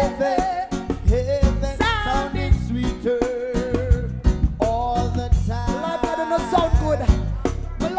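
Live band playing reggae, heard close to the drum kit: sharp drum and cymbal hits over a strong bass, with a melody line on top.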